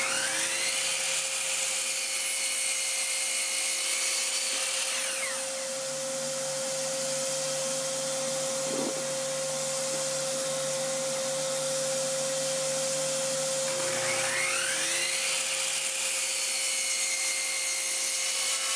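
Ridgid miter saw crosscutting a board, started twice. Each time the motor spins up with a rising whine and runs steadily through the cut. The first run winds down after about five seconds, and the second starts about fourteen seconds in. A steady hum sits underneath, from a shop vacuum on the saw's dust hose.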